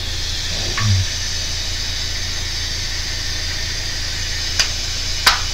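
P-SB7 ghost box scanning radio stations in reverse sweep, giving a steady hiss of static over a low hum, with two sharp clicks near the end.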